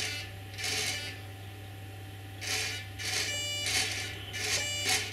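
RC helicopter tail rotor servo whirring in a series of short bursts, about seven, as it drives the tail pitch slider near full travel, over a steady low hum.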